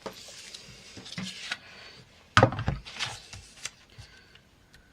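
Handling a sheet of vellum at a paper trimmer: rustling and sliding of the paper, a loud knock about two and a half seconds in, then a few lighter clicks and taps.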